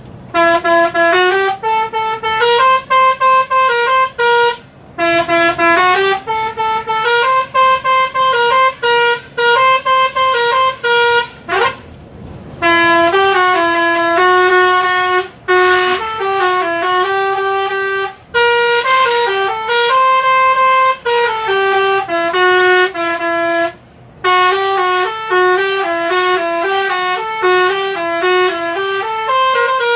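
Basuri telolet musical vehicle horn playing a loud tune, held notes stepping up and down in pitch with short breaks between phrases. A quick rising slide comes just before the twelve-second mark, and a short pause follows.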